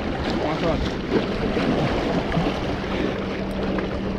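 Wind buffeting the microphone over sea water washing against rocks, with a steady low hum coming in about halfway through.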